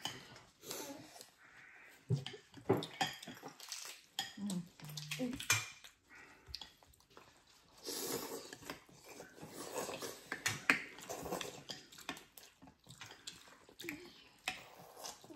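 Bowls of phở being eaten: chopsticks and spoons clinking and scraping against ceramic bowls, with noodles and broth slurped in short noisy bursts now and then.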